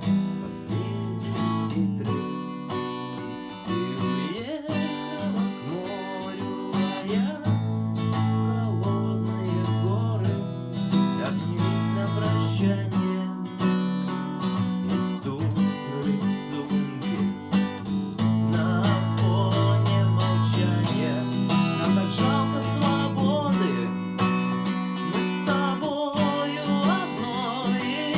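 Acoustic guitar strumming chords in a steady rhythm, the accompaniment of a song played on one guitar.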